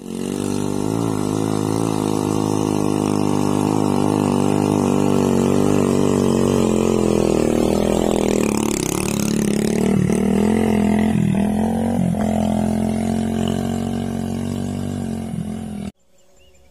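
Small motorcycle engine running while hauling a load of cassava roots. In the second half its pitch dips sharply and climbs back several times, and the sound cuts off suddenly near the end.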